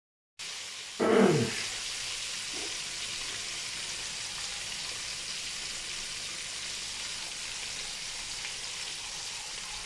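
Steady hiss of background noise. About a second in, a short, louder sound falls quickly in pitch.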